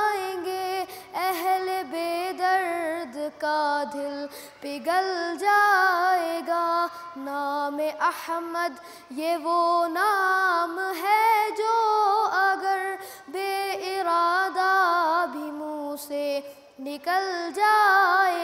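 A boy singing a naat (an Urdu devotional song) solo, his high voice sliding and wavering through ornamented phrases with brief pauses for breath.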